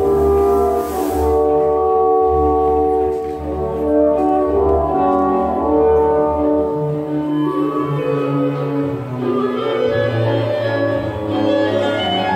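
Orchestral music with brass prominent: long held chords over a steady bass line, with the texture shifting and higher parts entering partway through.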